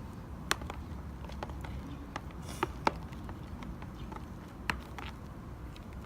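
A utensil stirring a mix of glue and shaving foam in a pot, with irregular clicks and knocks against the pot and a few louder knocks.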